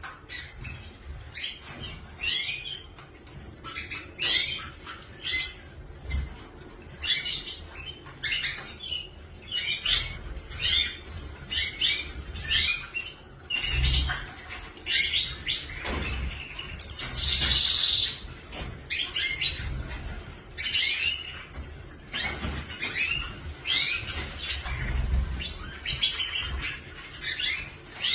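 Canaries chirping in short, quick, repeated calls, with one longer trill a little past the middle.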